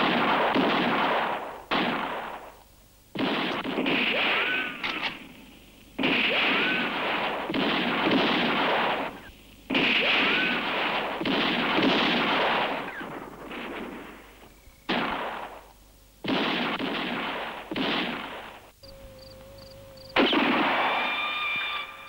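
A series of gunshots, about ten, each starting suddenly and trailing off in a long echo over a second or two, with a brief whine after a few of them.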